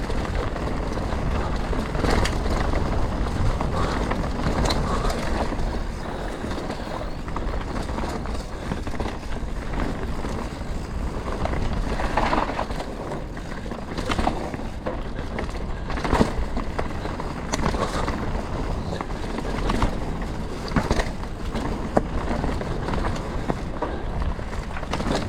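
Canyon Spectral 125 mountain bike rolling fast down a rough trail: steady tyre noise on dirt and stones, with frequent sharp knocks and rattles as the bike hits rocks and bumps.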